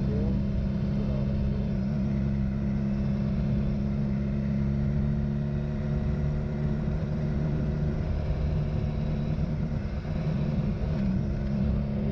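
Motorcycle engine running at a steady cruising speed with road and wind noise, the pitch wavering briefly about nine to eleven seconds in.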